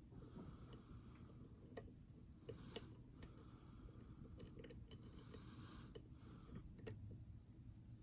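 Faint, irregular clicks of a lock pick and tension wrench working the pins inside a pin-tumbler challenge lock during picking.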